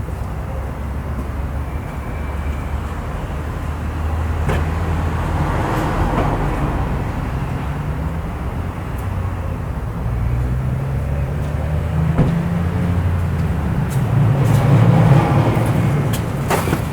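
A low, steady engine rumble of motor-vehicle noise that shifts in pitch and grows louder toward the end, with a few light clicks.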